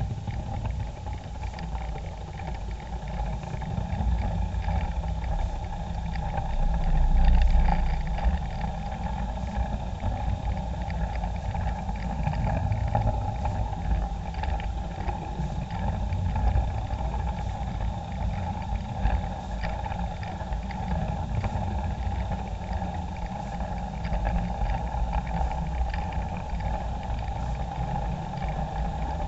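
Model train running along its track, heard from a camera riding on it: a steady electric-motor whine over a low rumble from the wheels, with frequent small clicks as they run over the rails.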